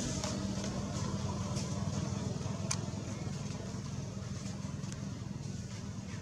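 Steady low hum of an engine running, with a single sharp click about two and a half seconds in.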